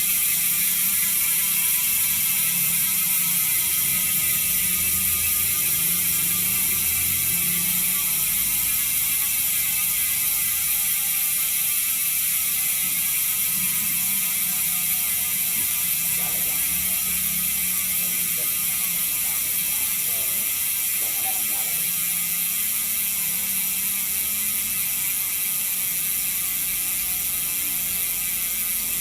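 Sagmit M120 six-pawl bicycle hub freewheeling: its pawls ratchet in a fast, continuous ticking as the wheel spins free. The pitch of the ticking falls slowly as the wheel loses speed.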